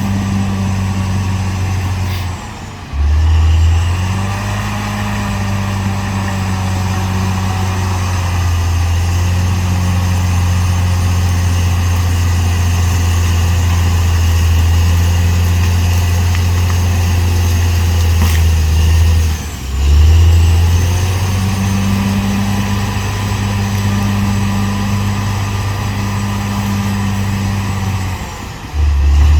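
Caterpillar D6R XL bulldozer's diesel engine running steadily and heavily, a deep low drone. It dips briefly three times, each time coming straight back up.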